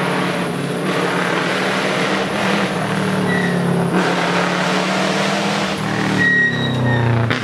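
Rally car engine revving hard on a closed stage road as the car approaches, with exhaust and tyre noise. The pitch rises near the end as it accelerates.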